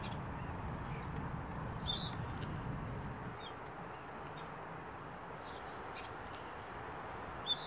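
Low, steady hum of honeybees from an opened hive box, with a few faint short high squeaks and a brief tick near the end as a frame is pried loose with a wooden hive tool.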